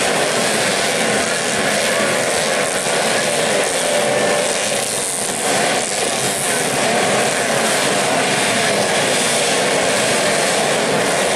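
A field of dirt-bike engines revving together at the start line, many overlapping engine notes rising and falling in a continuous loud din.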